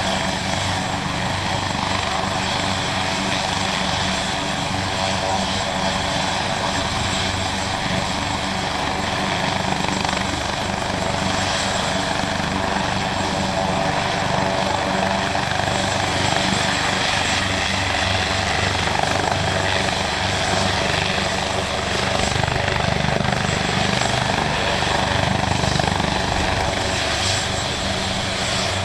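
Maryland State Police AgustaWestland AW139 helicopter running on the ground with its main rotor turning: steady turbine and rotor noise with a thin high whine on top.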